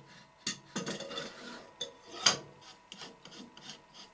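A thick wooden broomstick being pushed through a lathe's hollow spindle, scraping and knocking against the metal bore in short irregular strokes, with one sharper knock a little past halfway.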